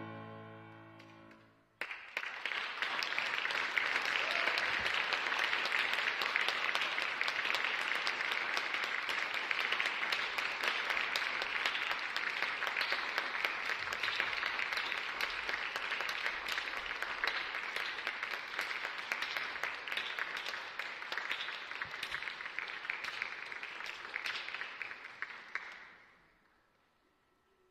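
The last chord of an upright piano rings out and dies away, then an audience applauds steadily for over twenty seconds, the clapping fading out near the end.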